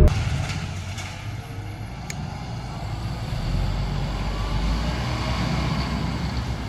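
Heavy machinery engine running, a steady low rumble that dips about a second in and builds back up.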